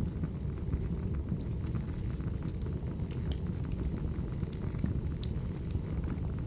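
Crackling wood fire: a steady low rumble with sharp crackles and pops scattered irregularly through it.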